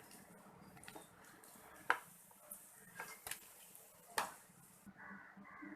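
Four sharp knocks of kitchen utensils on cookware against a quiet room, spaced roughly a second apart. Near the end a crow starts to caw.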